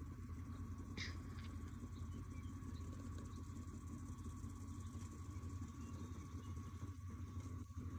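A horse's hooves padding on soft arena dirt, over a steady low rumble; the hoofbeats pick up near the end as the mare moves off into a lope.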